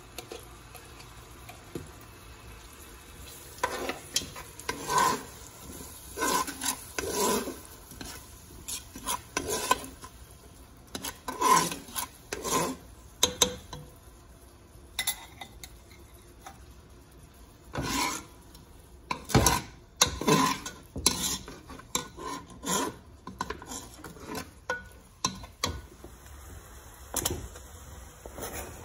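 A spoon stirring and scraping around a stainless steel pot in repeated short strokes while onions and kimchi fry, with faint sizzling underneath.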